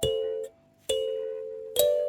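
Kalimba played slowly as a chime melody: three single plucked notes a little under a second apart, each a clear ringing tone that fades, the first stopped short after about half a second.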